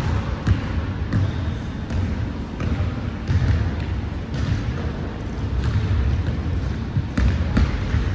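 Basketball bouncing on a hardwood gym floor during a pickup game, with irregular knocks about once or twice a second over the low scuffle of several players' footsteps in a large gym.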